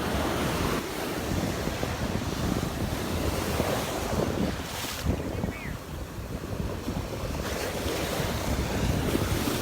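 Gulf of Mexico surf washing on the beach, with wind buffeting the microphone in a steady low rumble.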